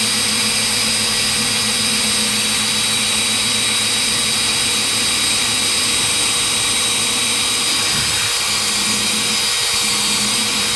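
Cordless drill running at a steady speed, boring the torsion-spring anchor hole into a KLR650's cast engine case: a continuous steady whine.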